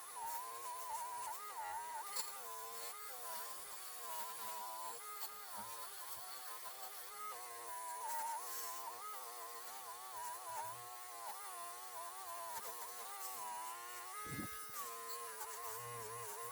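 Small high-speed rotary tool running with a high buzzing whine whose pitch wavers up and down as it bears on the work, polishing a bare diecast metal car body.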